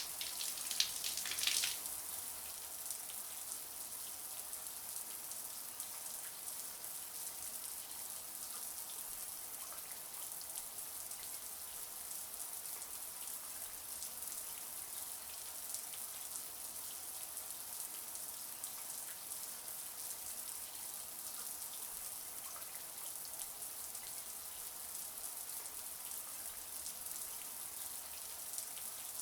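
Shower water running steadily, an even hiss of spray falling on a hard surface, with a few louder splashes in the first couple of seconds.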